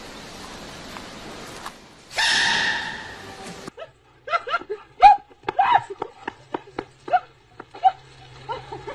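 A sudden loud sneeze from a giant panda cub about two seconds in, then a quick series of short yelps and barks from a dog, each call falling in pitch.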